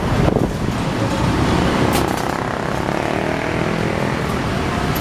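Traffic of small motor scooters and motorcycles at close range, a steady mix of engines idling and pulling away.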